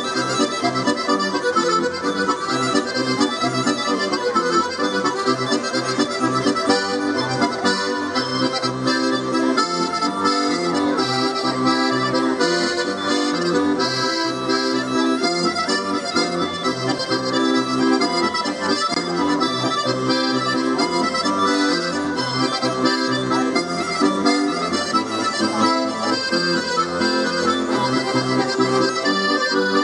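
Accordion playing a tune without pause, with a steady beat in the bass notes.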